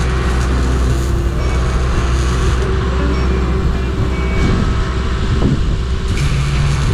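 An engine running steadily: a continuous low rumble with no change in speed.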